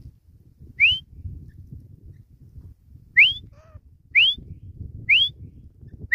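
Grey francolin calling: short, loud whistled notes, each sliding upward. One comes about a second in, then a run of four at about one-second intervals from the middle to the end, with fainter low notes after some of them.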